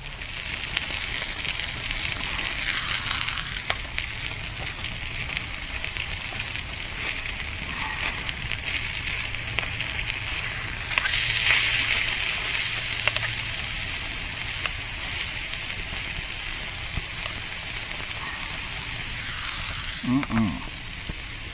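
Piri piri chicken thighs sizzling and frying in a pan over a BCB stove burning Fire Dragon gel: a steady hiss with small crackles, growing louder for a couple of seconds about eleven seconds in.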